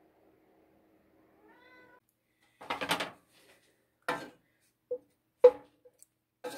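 Wooden spoon stirring butter in a saucepan: a few separate scrapes and knocks against the pan, the sharpest a ringing knock about five and a half seconds in.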